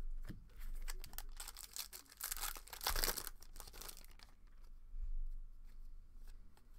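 Foil wrapper of a baseball card hobby pack crinkling and tearing, a run of papery rustle loudest two to three seconds in, then quieter handling clicks as cards are shuffled by hand.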